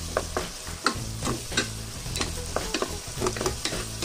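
A wooden spatula stirs diced potatoes and carrots in a pan of soy-sugar sauce, with irregular scrapes and taps against the pan, several a second, over the sizzle of the vegetables cooking.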